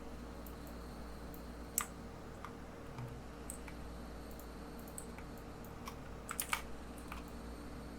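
Scattered clicks of a computer mouse and keyboard, single presses with a quick run of three or four near the end, over a faint steady hum.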